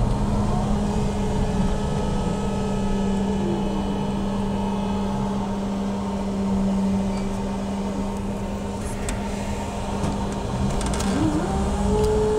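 Electric drive of a BKM 321 trolleybus heard from inside the cabin while it moves: a steady hum with a whine that dips in pitch about three seconds in and climbs again near the end.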